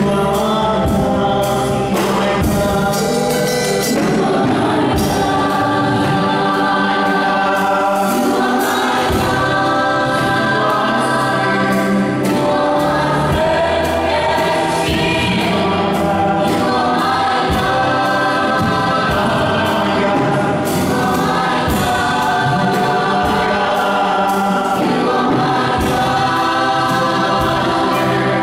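A vocal group singing together into microphones in harmony, with a steady percussion beat behind them.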